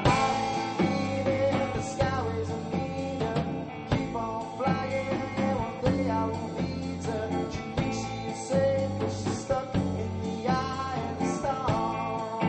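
Rock band music: an instrumental passage of a song with guitar, bass and drums.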